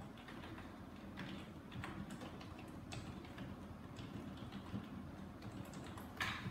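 Faint, irregular computer keyboard key clicks as a short phrase is typed, over a steady low room hum.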